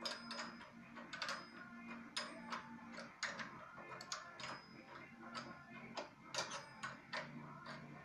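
Light metallic clicks and ticks, irregular at about two a second, of a metal hand tool turning the adjusting screw of a homemade vacuum relief valve, over a faint low hum.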